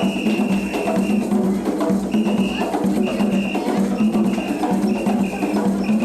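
Music with wooden hand percussion, with a steady low hum underneath.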